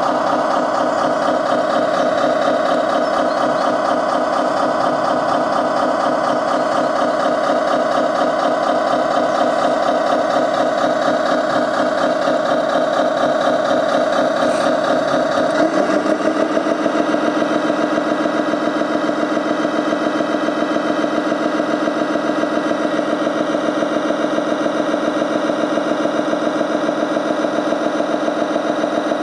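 Diesel truck engine sound from the RC Scania fire truck model's sound module, idling steadily with a fast, even chug and little bass. About 16 seconds in, the engine note drops and settles into a different steady idle.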